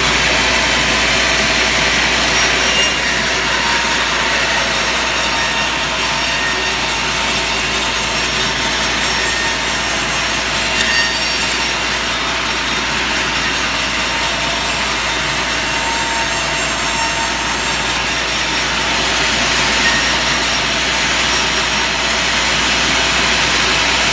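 Powered saw blade ripping lengthwise through ulin (Bornean ironwood), a continuous loud grinding rasp of the cut, with the steady hum of the machine running underneath.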